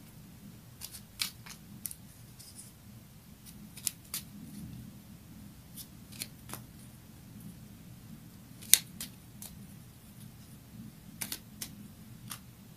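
Irregular sharp clicks and snaps of a deck of oracle cards being shuffled and handled, the loudest snap a little before nine seconds in, over a low room hum.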